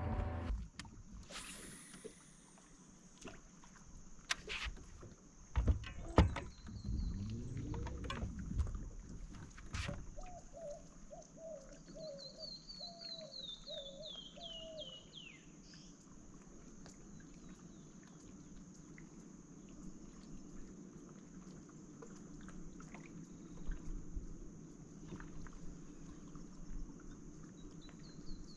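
Quiet sounds on a fishing boat: scattered knocks and clunks on the boat in the first ten seconds, over a steady high-pitched buzz and a low hum. About twelve seconds in, a bird sings a run of short notes falling in pitch.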